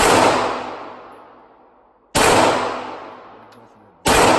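Three gunshots about two seconds apart, each a sharp crack followed by a long echoing decay in the range.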